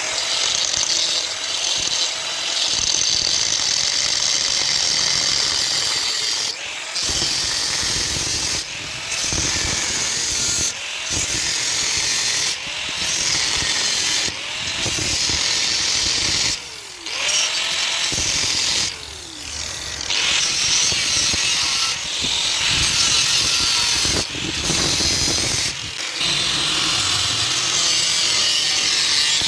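A power tool working metal, running in stretches of a couple of seconds with brief breaks between them and its pitch rising and falling.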